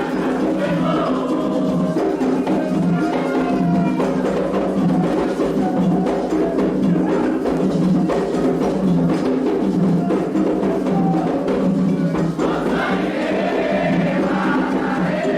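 Candomblé toque: atabaque hand drums and a struck bell playing a steady, repeating rhythm, with group singing over it.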